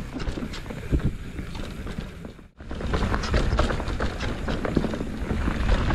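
Mountain bike rattling and clattering over a rough, rocky trail, with a steady rushing noise and many sharp knocks. The sound cuts out for an instant about two and a half seconds in, then comes back louder.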